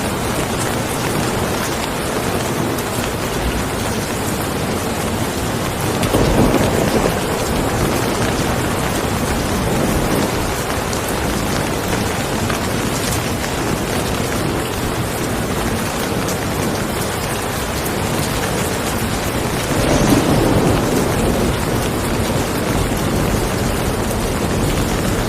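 Steady rain falling, a dense even hiss, with two brief louder swells about six and twenty seconds in.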